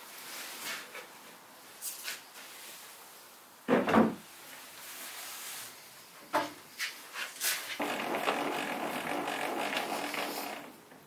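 Sheets of Baltic birch plywood being handled on a wooden lumber cart: light wooden knocks, a loud heavy thump about four seconds in, a few sharp knocks, then a couple of seconds of steady rubbing noise near the end.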